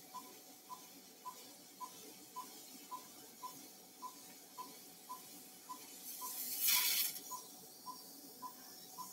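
Anaesthesia patient monitor beeping steadily at one pitch, just under two beeps a second, each beep marking a heartbeat of the anaesthetised dog. A brief louder hiss comes about two-thirds of the way through.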